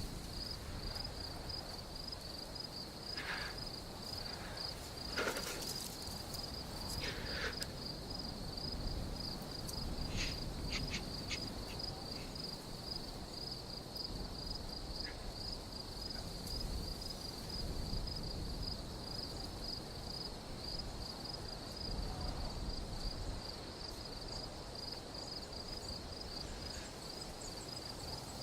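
Crickets chirping in a fast, even pulse that runs steadily on, with a few faint knocks and rustles now and then.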